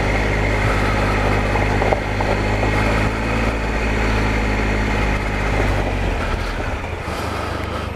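Triumph Explorer adventure motorcycle's three-cylinder engine running steadily while riding along a dirt trail.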